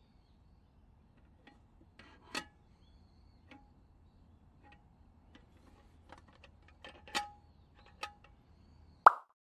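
Wire bail handle of a metal army mess tin clicking and clinking against the pot as it is swung and folded down, a scatter of light metallic clicks with the strongest about seven seconds in. A sharper ringing clink comes just before the end.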